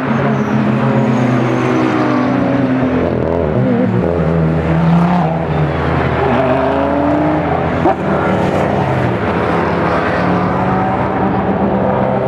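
Car engine heard from inside the car while it is driven hard on track. The engine pitch climbs under acceleration and drops back at each gear change several times, with a short click about eight seconds in.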